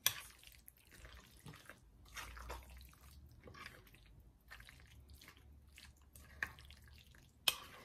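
Metal spoon stirring and mashing guacamole in a cut-glass bowl: soft, irregular wet squishing with small clicks. The spoon knocks sharply against the glass just after the start and again near the end.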